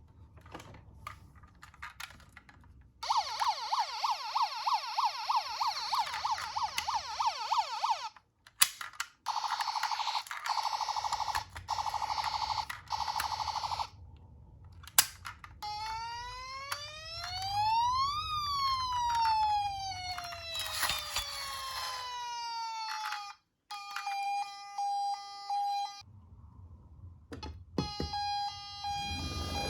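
Electronic emergency-vehicle siren sounds in several patterns with short breaks between them: a fast repeating yelp for about five seconds, then a fast warble, then one long tone rising and falling, and near the end a two-tone hi-lo alternation like a Japanese ambulance siren.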